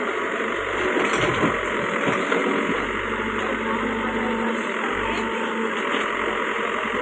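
Tractor engine running steadily, with people talking in the background.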